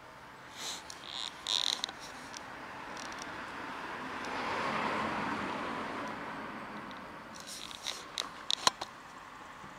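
Handling noise: short bursts of scraping and rustling, once during the first two seconds and again near the end. In between, a broad rush of noise swells and fades.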